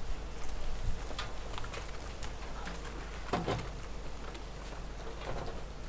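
A few soft knocks and taps from a metal stovepipe section being handled and lifted into place, the strongest a little past halfway, over a steady low rumble.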